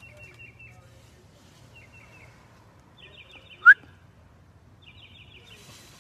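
A songbird chirping in short buzzy trills every second or two. A single sharp, high squeak a little after the middle is the loudest sound.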